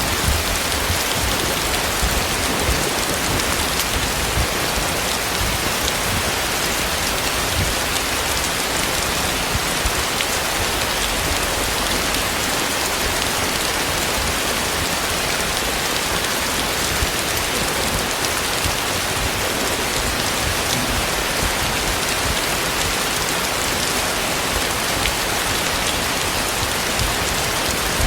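Heavy rain falling steadily, with scattered sharper drop hits over the dense, even hiss.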